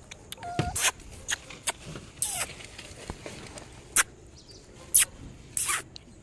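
Handling noise of a puppy's wound being treated: a string of sharp clicks and a few short hissing rustles, with a brief faint tone about half a second in.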